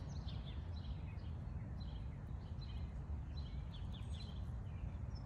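Birds chirping with many short, quick calls throughout, over a steady low background rumble.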